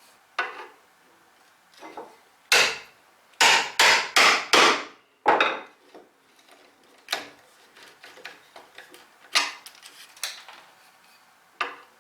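Hammer striking a mortise chisel, chopping a mortise in pine. There is a quick run of about five heavy blows a few seconds in, then lighter, scattered knocks.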